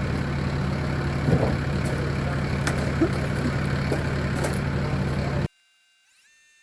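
Concrete conveyor truck's diesel engine idling steadily, with a few light knocks over it. About five and a half seconds in it cuts off suddenly, leaving only faint steady electronic tones.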